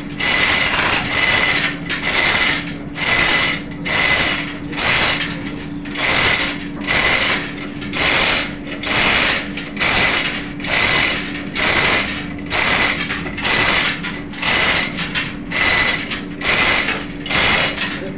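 Manual chain hoist being hauled hand over hand under load while lifting an engine block. Its gears and ratchet pawl clatter in even surges, one with each pull, about every three-quarters of a second.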